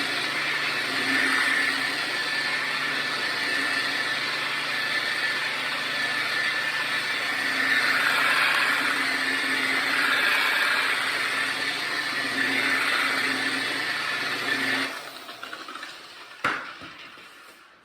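Electric paint polisher running steadily on the car's paint, working water-thinned polishing compound, its sound swelling and easing slightly as it moves. About fifteen seconds in it shuts off and winds down, followed by a single sharp click.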